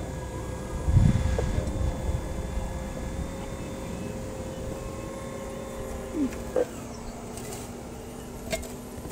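Scale-model CAT 5110 excavator's motors running with a steady whine as its arm and bucket dig into the bank. A brief low rumble about a second in is the loudest moment.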